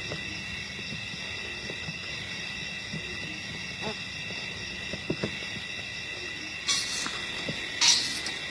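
Wild bush ambience: a steady high-pitched chirring, like an insect chorus, with scattered short low animal calls. Three louder sharp noises come near the end.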